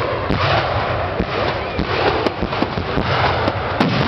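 Aerial fireworks going off: a steady din from the bursting display, punctuated by sharp bangs roughly every half second.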